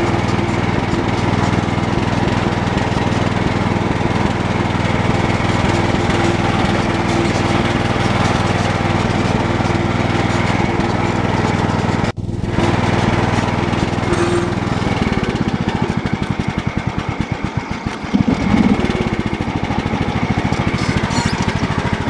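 Cub Cadet 1018 lawn tractor engine running steadily. There is a brief break about halfway. In the last third the note falls lower and the individual firing beats become distinct and slower.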